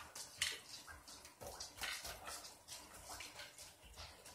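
Hands handling the plastic chassis and parts of an RC car: an irregular scatter of light clicks, knocks and rustles, the sharpest click about half a second in.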